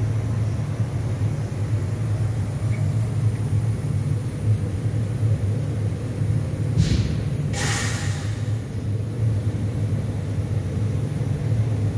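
Fiber laser cutting machine at work on 15 mm mild steel: a steady low hum from the machine, with two short hisses a little past halfway, the second louder.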